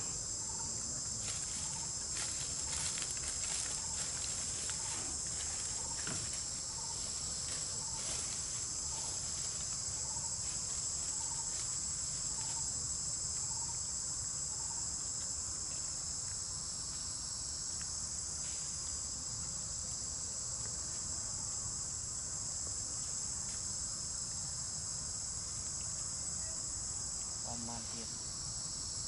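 Steady high-pitched chorus of insects droning without a break. Through the first half a faint soft note repeats about every half second, with a few faint clicks early on.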